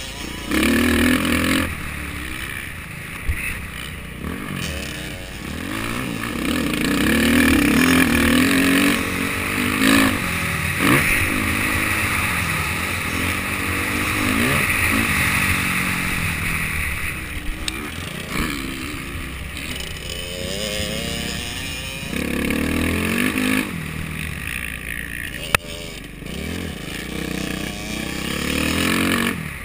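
Dirt bike engine revving up and down as it is ridden around a motocross track, its pitch rising and falling with the throttle and gear changes, heard from the rider's own bike. A single sharp knock near the end.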